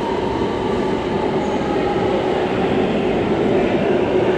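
Hangzhou Metro Line 5 subway train running: a steady loud rumble of wheels on rail, with a steady motor whine over it.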